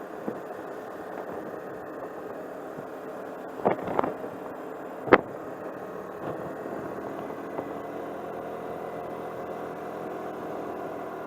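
Car driving along a road, heard from inside the cabin: a steady engine and road hum. A few sharp knocks break in about four and five seconds in, the last the loudest.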